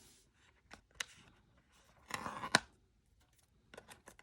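Unboxing handling of accessory packaging: a few light clicks and taps, then a short scraping rustle ending in a sharp click about two and a half seconds in, and more small clicks near the end.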